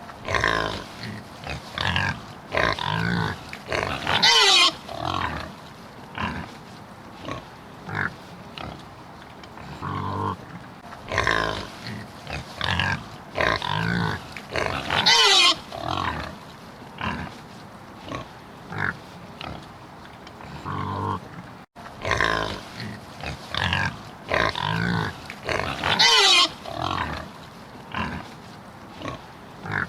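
Pig grunting and oinking in short, repeated calls, with a loud squeal about every eleven seconds.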